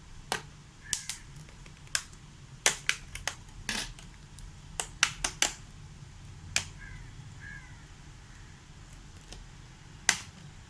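Sharp plastic clicks and snaps, irregular and some in quick runs, as the plastic strip above a Toshiba Satellite L735 laptop's keyboard is pried up and its clips let go.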